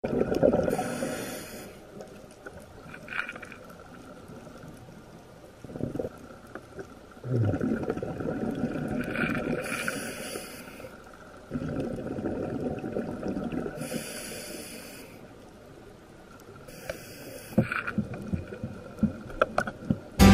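A scuba diver breathing through a regulator underwater, over several breaths. Each inhalation is a short hiss from the demand valve, and each exhalation is a bubbly rumble.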